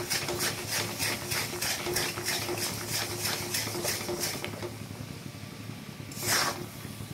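Metal spatula stirring and scraping melting jaggery in a metal pan, at about four to five strokes a second, while the jaggery is cooked down to syrup. The stirring stops about four and a half seconds in, and one louder scrape follows about six seconds in, over a steady low hum.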